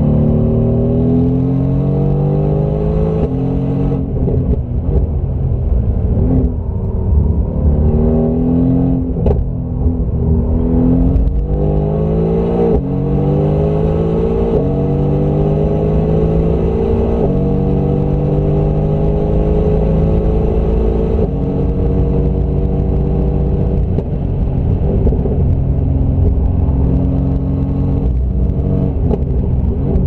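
Mercedes-AMG GT R's twin-turbo V8 heard from inside the cabin under hard acceleration on track, its pitch climbing and dropping back suddenly at each gear change, several times over, with steadier stretches between.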